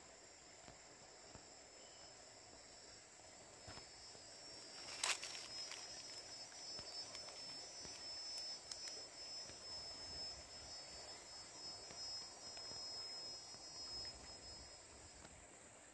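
Insects trilling steadily in a high, continuous chorus, with a second, slightly lower trill joining a few seconds in and fading near the end. A single sharp click or knock sounds about five seconds in.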